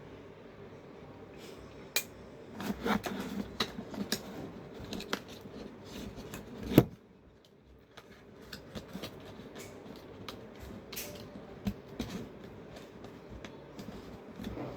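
Handling noise from a perfume bottle and its packaging: scattered light clicks, taps and rustles, with one sharp click about seven seconds in.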